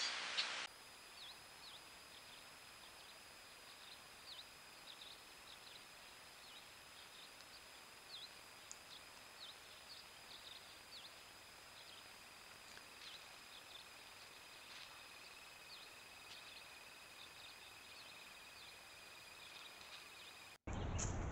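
Faint night ambience through a trail camera's microphone: low hiss with a steady high-pitched whine, and many brief, faint high chirps scattered throughout. A louder hiss cuts off under a second in.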